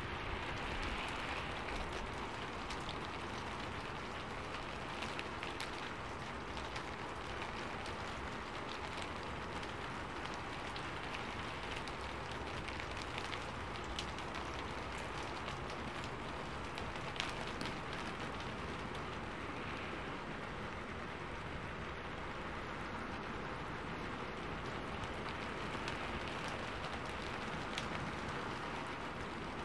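Steady rainfall: an even hiss of rain with scattered sharp taps of single drops striking close by, one a little louder about seventeen seconds in.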